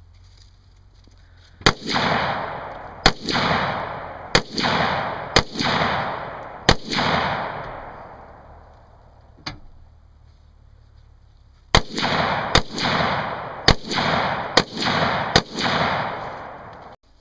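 Glock 19 9mm pistol firing ten shots in two strings of five, each shot followed by a rolling echo that fades over about a second.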